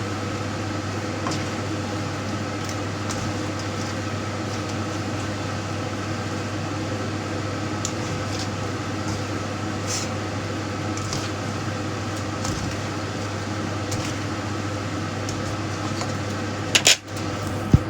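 Steady mechanical hum with a few faint clicks, and two sharp knocks about a second before the end.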